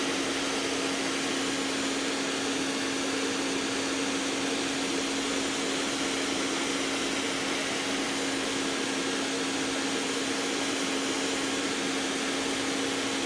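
Handheld hair dryer running steadily, blowing on freshly painted stone to dry the paint: a rush of air with a steady hum under it.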